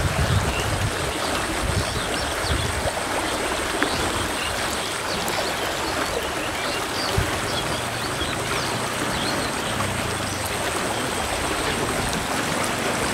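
Steady splashing and trickling water as a catch of small fish thrashes in the sagging pocket of a lifted square lift net, with scattered small splashes throughout.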